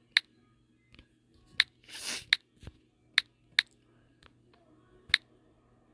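Typing on a phone's touchscreen: about six sharp, irregularly spaced taps, with a short soft rustle about two seconds in.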